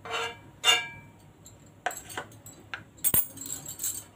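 Metal spoon clinking on a nonstick pan, twice in the first second, as a lump of butter is dropped in. A few light clicks follow, then a sharp knock just after three seconds and a brief scrape as a spatula goes into the pan.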